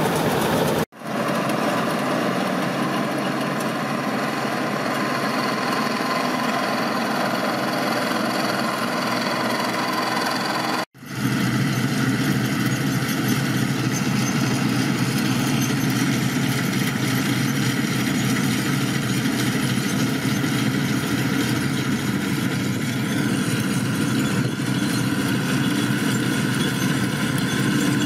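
Bizon Z056 combine harvester's diesel engine running steadily under load with its threshing machinery turning. Two brief drops to silence, about a second in and about eleven seconds in, split it into three takes; in the last take the low engine hum is stronger.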